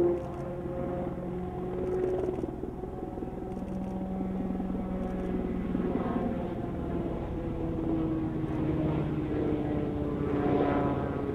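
Piasecki X-49A compound helicopter flying past, a steady mix of rotor and engine noise with several held tones that slide slowly lower in pitch over the second half.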